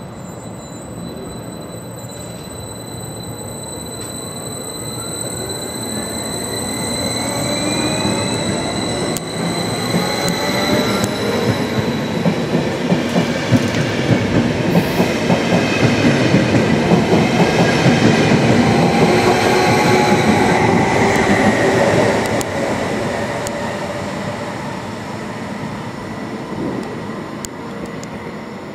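Stadler KISS double-deck electric multiple unit pulling away from the platform: its traction drive whines and rises in pitch as it gathers speed. Its wheels clack in a quick run over the rail joints as the carriages pass, then the sound fades as it moves away.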